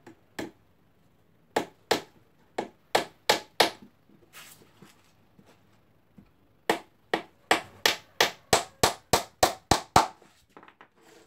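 Hammer blows on a small wooden speaker box: a couple of light taps, then a run of six blows, a pause, and a second, quicker run of about eleven blows at roughly three a second.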